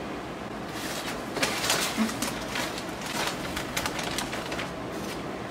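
Packaging rustling and crinkling, with light knocks and clicks, as items are dug out of a cardboard shipping box.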